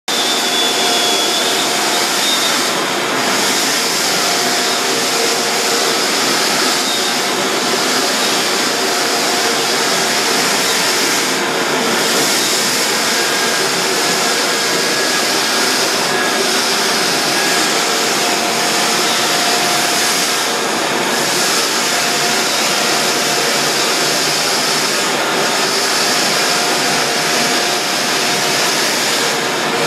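Drum floor sander running steadily while it sands a hardwood floor: a loud, even whir of motor and spinning abrasive drum. The high hiss dips briefly about every four seconds.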